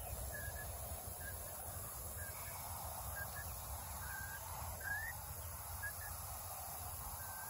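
Chicken peeping softly: short high notes about once a second, one rising near the middle, over faint steady background noise.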